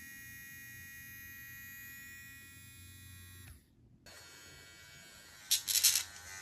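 Small electric pet nail grinder motor whining steadily; it cuts out about three and a half seconds in and starts again half a second later. Near the end come two short, much louder bursts of noise.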